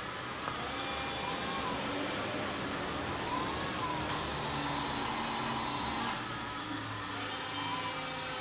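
Small electric motors driving several snail-like kinetic sculptures, running together: a steady whirring hum with overlapping whines that rise and fall in pitch and low tones that shift every second or so.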